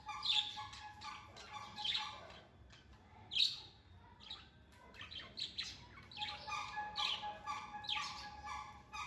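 Sparrows chirping: a run of short, harsh chirps, some overlapping, with a faint steady tone beneath them in places.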